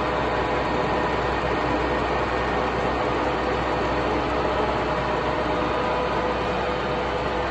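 Stanko 6A82III milling machine's table power feed traversing at its maximum feed rate: a steady mechanical running sound with a low hum and a gear whine of several steady tones.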